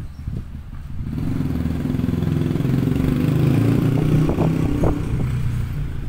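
Strong wind buffeting the phone's microphone: a low rumble that builds about a second in and stays loud, with a few sharp buffets near the end.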